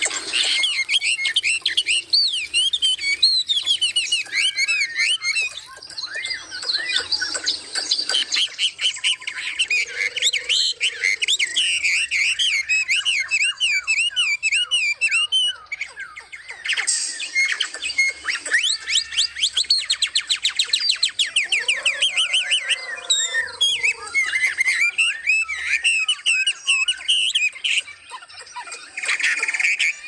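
Several caged songbirds singing and calling at once: fast warbling phrases and chirps that go on almost without a break, with a few lower, harsher calls mixed in.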